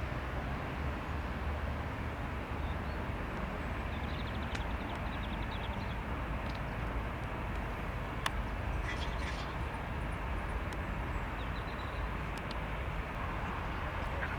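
Steady outdoor rumble and hiss with a few faint high chirps, and a single sharp click about eight seconds in.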